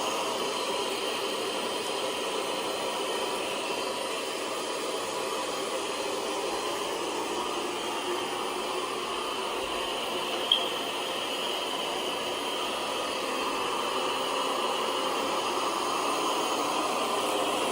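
Lefant M3 robot vacuum running steadily, an even fan-and-brush whir, with one sharp click about ten and a half seconds in.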